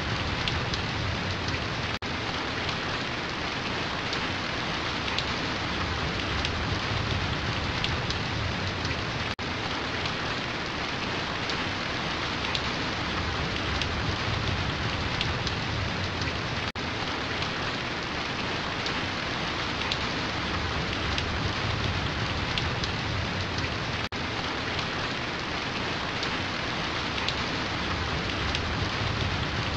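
Steady rainfall: an even hiss of falling drops, with a momentary dip in level about every seven seconds.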